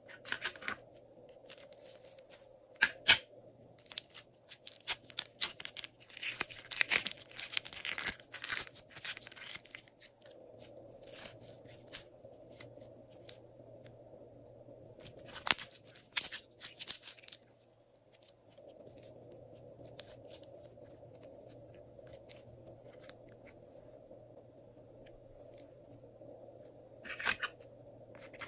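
Clear glossy glitter slime squeezed out of a plastic piping bag and stretched by hand, making sticky crackling pops and clicks. They come in a dense run through the first third, another burst about halfway, and a short one near the end, with quieter stretches between over a faint steady hum.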